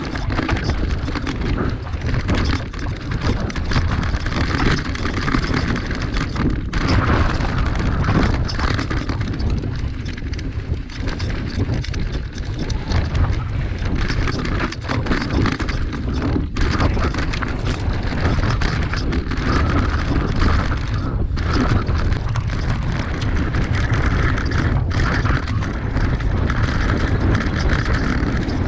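Mountain bike riding fast down a dirt singletrack: knobby tyres rolling over packed dirt and stones, with the bike rattling and knocking over the bumps. A steady low rush of wind on the microphone runs under it.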